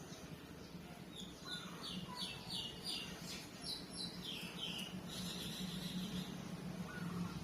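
A bird chirping a run of short, high notes, about two to three a second, over a steady low background hum.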